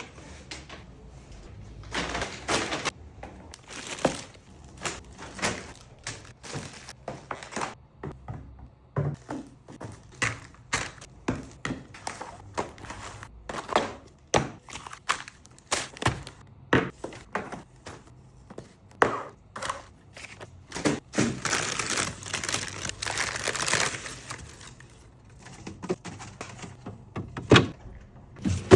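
Groceries being unpacked and put into a refrigerator: a string of knocks and clicks as packages and containers are set down, with plastic packaging rustling for a few seconds about three quarters of the way through.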